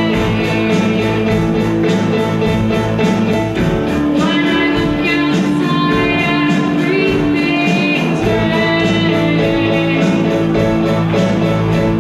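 A live rock band playing: electric guitars, keyboard and drums in a steady beat, with a girl singing over them.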